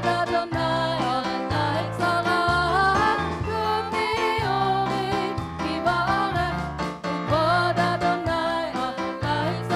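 Worship song playing: a melody line, probably sung, over a band with a steady bass pattern.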